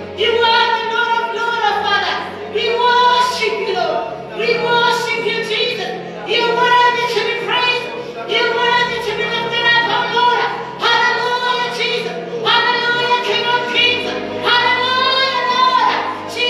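A woman singing a worship song into a microphone, holding long notes with vibrato, over sustained keyboard chords.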